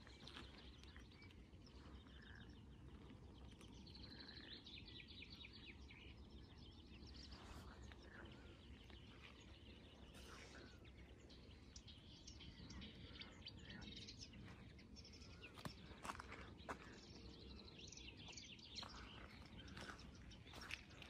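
Faint birds chirping and singing in open fields, in scattered short phrases over a low steady background rumble.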